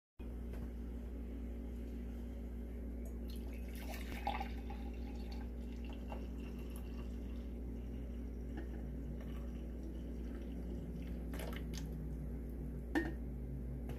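Coffee being poured from a Moccamaster glass carafe into a mug, a steady trickling stream, over a steady low hum. A few light clicks, one near the end.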